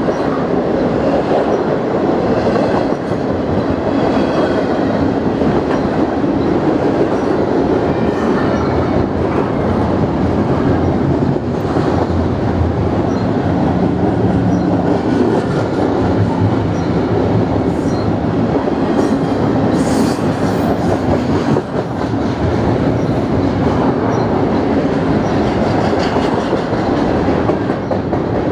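Double-stack intermodal freight train of well cars rolling past at close range: a steady, loud rumble and rattle of steel wheels on the rails, with now and then a faint high squeal.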